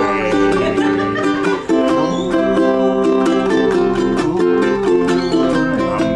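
Ukulele strummed in a steady rhythm, chords ringing on.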